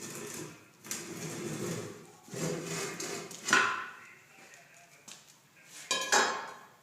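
Rubber tire bead rubbing and scraping against a steel wheel rim as it is levered over on a manual tire changer: three long rubbing strokes, then a sharp squeak about three and a half seconds in. A metallic clank with a brief squeal comes about six seconds in.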